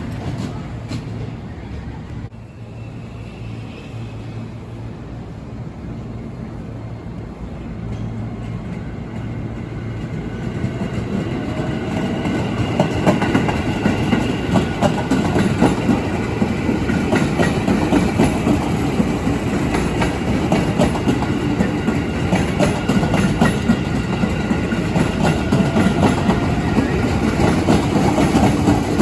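Train moving through the station. Its wheels clack over the rail joints in a fast, steady rhythm that grows louder through the second half, with a rising whine from about the middle.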